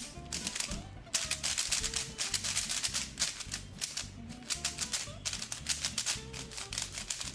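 Rapid clicking and rattling of a Qiyi Thunderclap 3x3 speed cube being turned fast, unlubricated and straight out of the box, over background music.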